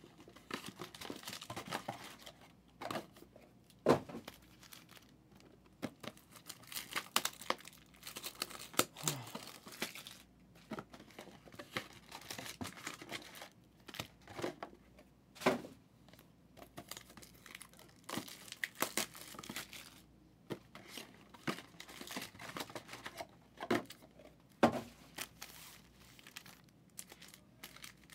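Packaging from trading card boxes and packs crinkling and tearing as it is opened and handled, with a few sharp knocks among the rustling.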